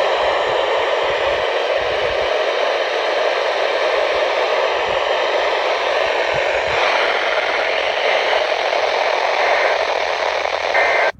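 Steady radio static hiss from a weather radio receiver with no program audio, a faint thin whistle under it for the first half. The hiss cuts off abruptly at the end.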